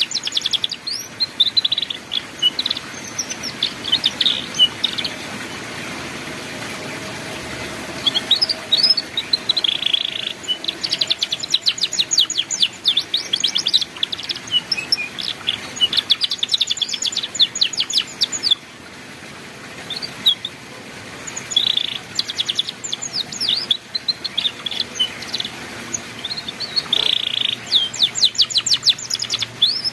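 Domestic canary singing ngeriwik-style song: phrases of very fast, evenly repeated high chirps forming rattling trills, broken by short pauses.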